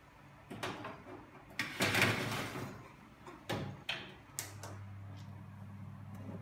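A metal baking tray of raw meatballs slid onto the oven rack with a scraping rattle, then the oven door pushed shut with a knock and the control knob clicked. A steady low hum follows.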